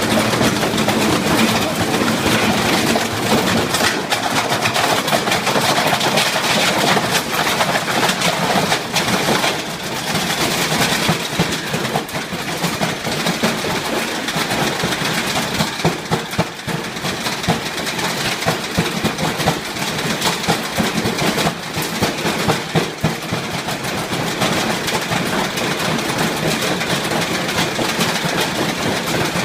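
Washing machine running hard under a durability test, a loud continuous clattering din of rapid irregular knocking and rattling.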